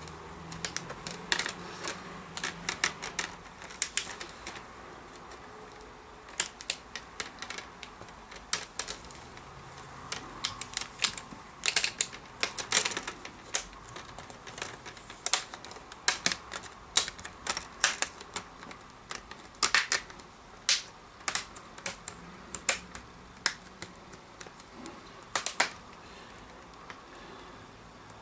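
Plastic snap clips of a laptop's screen bezel clicking into place as the bezel is pressed back onto the lid, many sharp irregular clicks in clusters.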